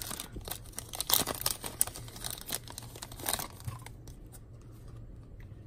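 Foil wrapper of a trading-card pack being torn open and crinkled, a quick run of sharp crackles that dies down after about three and a half seconds as the cards come out.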